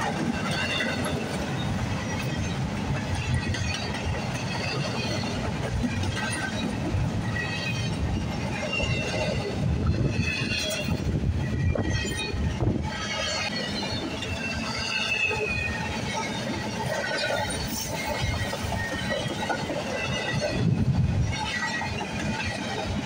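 Freight train of intermodal well cars rolling past on the rails: a steady low rumble of wheels on track, with high, wavering wheel squeal over it.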